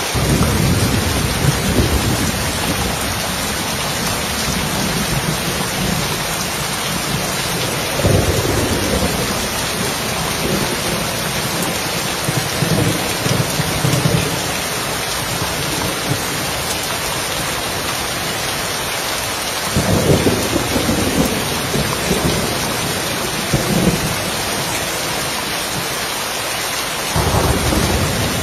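Steady rain falling on a roof, with rolls of thunder rumbling in: one fading at the start, then fresh rumbles that break in sharply about a third of the way in, again about two-thirds through, and near the end.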